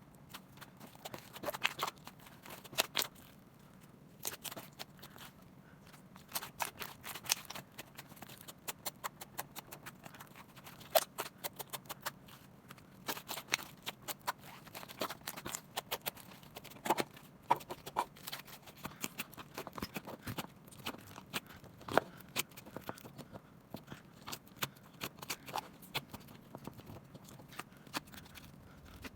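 Slime squeezed and worked by hand, giving many irregular clicks and pops, some in quick runs.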